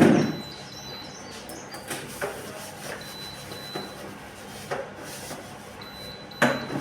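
Scattered clunks and knocks of a fridge's contents and fittings being handled during cleaning: a loud thud at the start, then a few sharper knocks spread through, the last loud one near the end.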